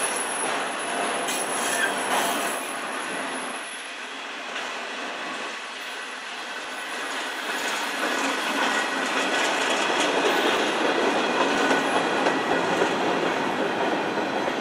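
Freight cars of a passing CN manifest train rolling over the rails: a steady wheel-on-rail rumble and clatter with a faint high wheel squeal. It grows louder about halfway through as the last cars go by.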